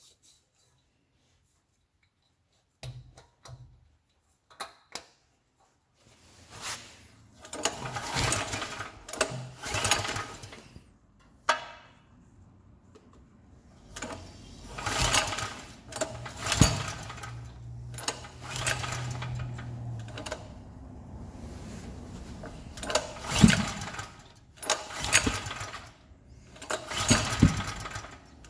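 Gasoline generator engine being cranked over again and again in a run of separate attempts, each about a second long, without settling into a steady run: it won't start. A few light clicks come before the first attempt.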